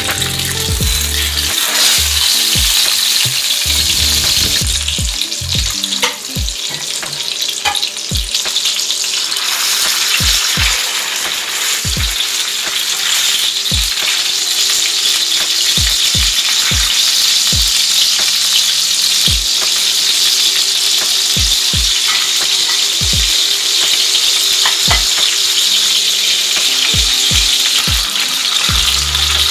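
Whole tilapia frying in shallow hot oil in a pan: a steady sizzle.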